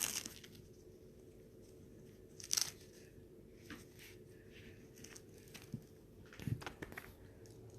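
A few brief, faint rustles and light clicks, spread a second or more apart, over a low steady hum: handling noises as small objects are moved about.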